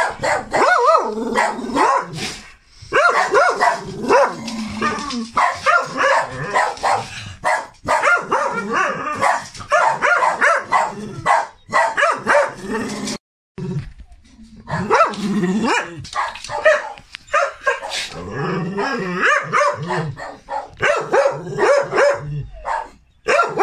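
Several dogs barking at each other, a near-continuous stream of barks broken by a short lull about two and a half seconds in and a brief silence about thirteen seconds in.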